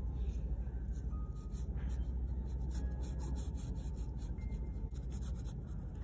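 Steel nib of a Lamy fountain pen scratching across rough, textured watercolour paper in quick, short hatching strokes, one stroke after another, over a low steady hum.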